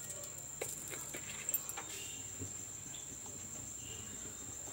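Mustard seeds in hot oil in a steel kadhai, giving scattered light pops and crackles as they start to splutter, over a steady high-pitched whine.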